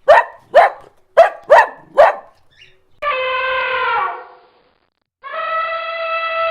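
A dog barking five times in quick succession, followed by two long, steady, pitched animal calls with a pause between them.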